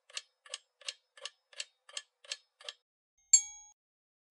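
Countdown-timer sound effect: a clock ticking evenly, about three ticks a second, then stopping, and a single bright ding about three seconds in, as time runs out.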